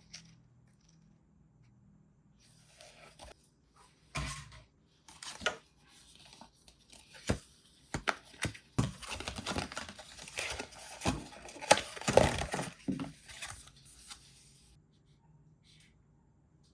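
Crinkling, rustling handling noise broken by sharp clicks and knocks, busiest and loudest in the middle stretch, then dying away a couple of seconds before the end.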